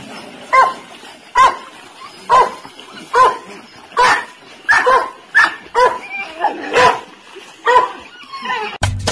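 A dog barking over and over, about one short bark a second, a few coming closer together midway.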